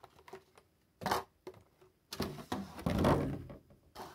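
Clear plastic figure packaging being handled and pulled apart: a sharp plastic clack about a second in, then a longer stretch of crackling and rustling plastic a little after two seconds, with a few small clicks near the end.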